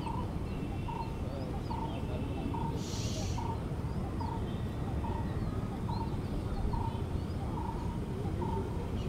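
Birds calling: one bird repeats a short, low note evenly, a little more than once a second, while other birds chirp higher. A steady low background rumble lies under them, and a brief hiss comes about three seconds in.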